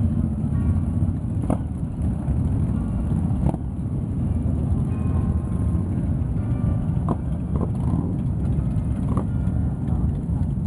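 A procession of motorcycles, many of them cruisers and touring bikes, running at low speed as they ride past one after another, a steady dense low engine rumble. A few brief sharp knocks stand out over it.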